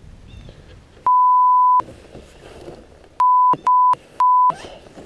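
Censor bleeps: a steady 1 kHz tone dubbed over the audio four times, one long bleep about a second in and then three short ones in quick succession near the end, blanking out swearing.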